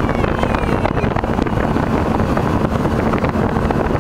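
Motorboat underway: a steady engine drone with wind buffeting the microphone.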